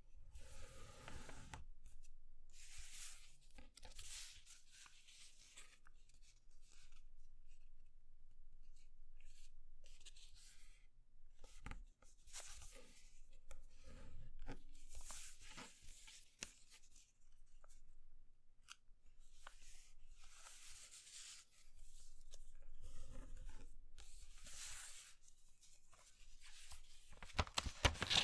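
A sheet of graph paper being folded and creased by hand on a cutting mat: bursts of papery rustling and sliding as each fold is laid over and pressed flat, with short crisp clicks between them. Near the end comes a louder crackle as the paper is lifted and bent.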